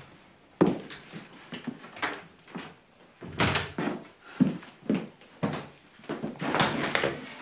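Door and handling noises: a series of irregular knocks and thumps, with two longer scraping rushes about three and a half and six and a half seconds in.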